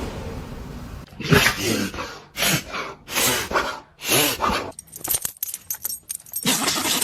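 A dog sneezing again and again: four short, sharp bursts about a second apart, then a quick run of light clicks, then another sneeze near the end.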